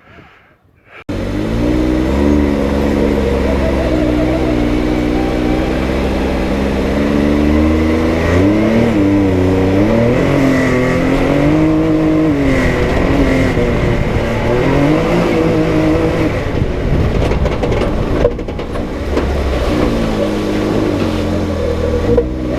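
Can-Am Maverick X3 X RS side-by-side's turbocharged three-cylinder engine running under load, revving up and down again and again as it drives. It comes in abruptly about a second in.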